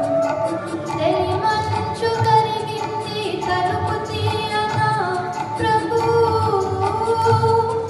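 A girl singing into a handheld microphone through a PA, holding long wavering notes over a recorded backing track with a steady low beat about twice a second.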